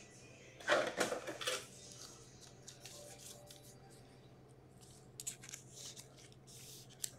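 Hockey card being slid into a clear plastic penny sleeve and handled: soft rustling and scraping of card and plastic, loudest about a second in, then faint rustles and a few light clicks.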